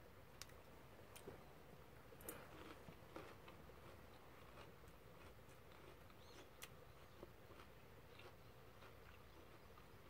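Near silence: faint chewing with a few scattered soft clicks of chopsticks against a dish.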